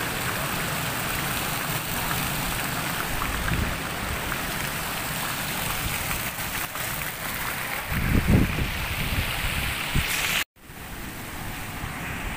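Fountain jets splashing into a pool: a steady hiss of falling water, with a low rush of wind on the microphone about eight seconds in. It cuts off abruptly near the end, then a quieter open-air background follows.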